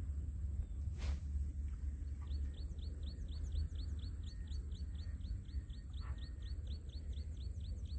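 Low outdoor wind rumble, with a bird calling in a fast run of short, falling high chirps, about five a second, starting about two seconds in. A single sharp click about a second in.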